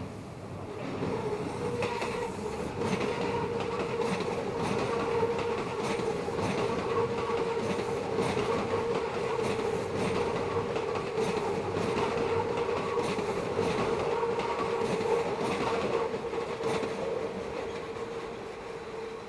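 Meitetsu electric train passing through a curve, its wheels squealing against the rails in a loud, steady high tone, with the clickety-clack of wheels over the rail joints. It builds up about a second in and fades near the end.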